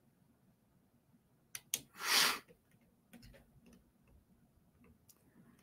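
Near silence in a small room, broken by two faint clicks and then, about two seconds in, a short breathy rush of air: a man's sharp breath at the microphone.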